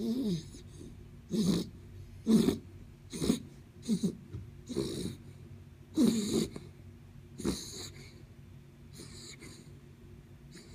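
Sleeping dachshund snoring, a run of short snores and snorts about once a second that die down to a few faint ones after about eight seconds.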